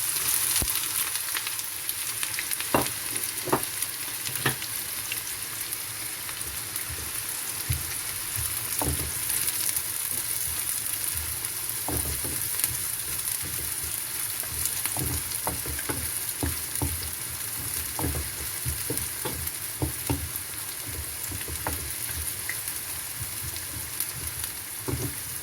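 Sliced onions frying in hot oil in a pan, a steady high sizzle, with scattered knocks of a spoon against the pan as they are stirred.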